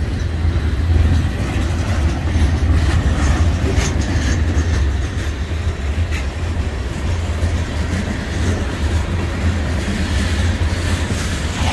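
Freight train cars rolling past, their steel wheels running on the rails with a steady low rumble and a few clicks.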